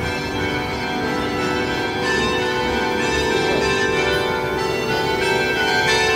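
Church tower bells ringing, several bells sounding together in a dense, overlapping hum, with fresh strokes coming in now and then.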